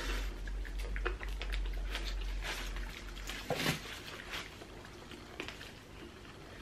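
Eating sounds at close range: chewing, lip-smacking and squishy mouth noises with scattered small clicks as several people eat with their hands. A brief hum-like sound comes about three and a half seconds in.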